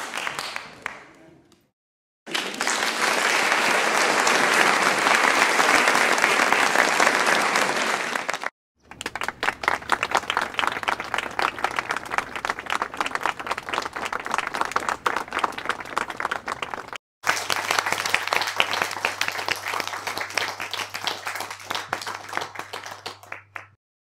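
Crowd applause in separate takes, each cut off by a brief silence. A fading tail comes first, then a dense, loud stretch of applause, then two takes of medium applause where single claps stand out more, the last over a faint low hum.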